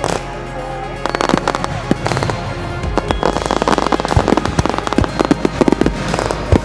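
Aerial fireworks going off: quick bangs and crackles come thick and fast from about a second in, with music playing along.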